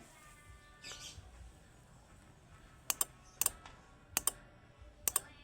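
Starter relay of a 2005 Toyota Innova, its cover removed, clicking as it is switched: a series of sharp double clicks in the second half. The clicks show the relay's coil pulling in and the contacts engaging, so the relay is working.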